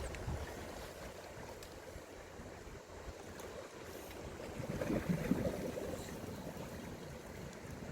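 Seawater lapping and splashing, rising briefly about five seconds in.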